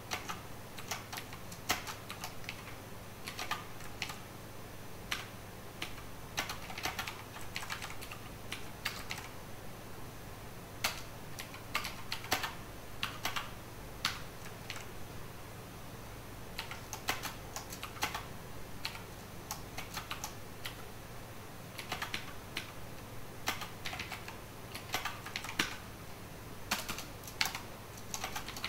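Typing on a computer keyboard: quick irregular runs of keystroke clicks with short pauses between them.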